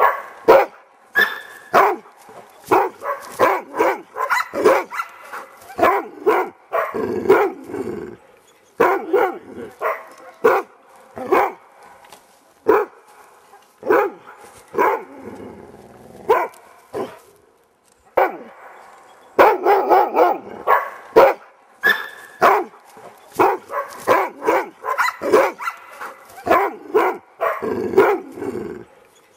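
Weimaraner barking at a wild boar in the thicket: repeated sharp barks in quick runs, the baying of a hunting dog holding game at bay. There is a pause of about two seconds a little past the middle.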